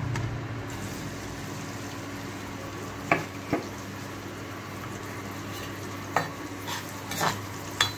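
Sliced onions and green chillies sizzling in hot oil in a kadai, after being tipped in at the start. A steel spoon knocks against the pan in several sharp clicks through the second half.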